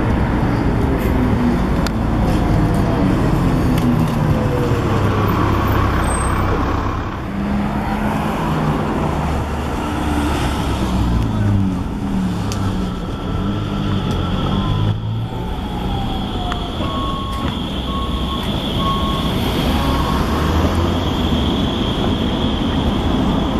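Street traffic: a city bus and cars passing, their engines rising and falling in pitch as they go by. In the second half a high steady whine runs under the traffic, and a few seconds of evenly spaced beeping come in near the end.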